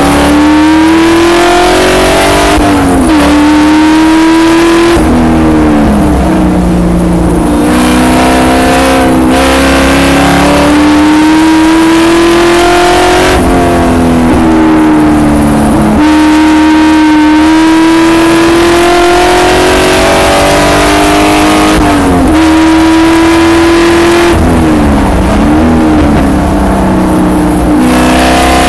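Spec Corvette's V8 engine at racing speed, heard from the car's own onboard camera. It climbs in pitch under acceleration and drops suddenly at gear changes several times, falling away as the car slows for corners.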